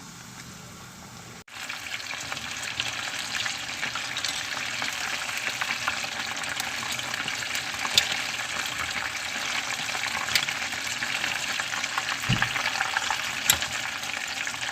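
Flour-coated chicken wings deep-frying in plenty of hot oil: a steady sizzle and crackle with a few sharp pops. The frying gets louder from about a second and a half in.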